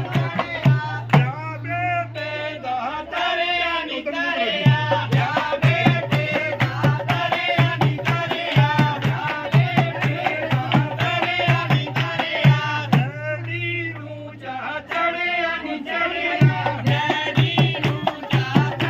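Punjabi folk wedding song: voices singing over a steady hand-drum beat, which drops out briefly twice.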